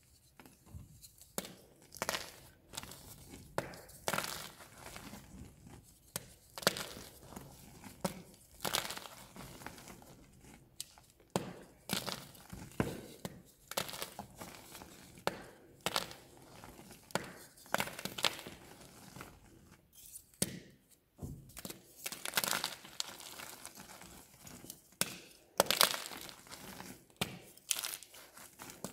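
Blocks of magnesium carbonate gym chalk being snapped and crushed between bare fingers: dry crunching and crumbling in irregular bursts about every second or two.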